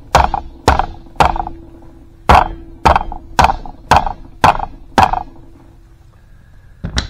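Mallet tapping the head gland of a hydraulic cylinder into its steel barrel: nine sharp knocks at about two a second, with a short pause after the third. One more knock comes near the end.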